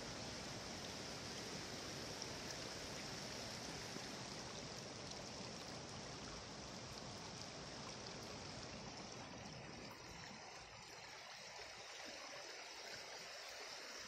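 Stream water rushing steadily over rocks, growing a little quieter and thinner in its deeper part about ten seconds in.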